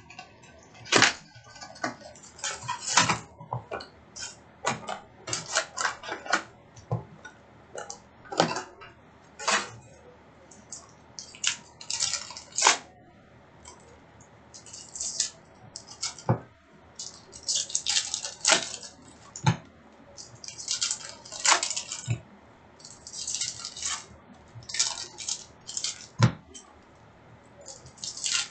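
Packs of 2018-19 Upper Deck SP Authentic hockey cards being opened and handled: irregular crinkles and rustles of the foil wrappers and cards, some in quick clusters.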